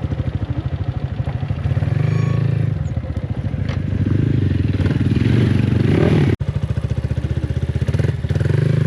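Yamaha MT-15 single-cylinder engine breathing through an aftermarket Akrapovic exhaust, running under way with a rapid, even exhaust beat that swells and eases with the throttle. The sound cuts out for an instant about six seconds in.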